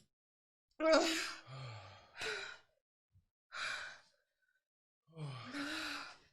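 Several heavy, breathy sighs and exhales in a row, some with a voiced moan, separated by short silences: people panting through the burn of extremely hot food.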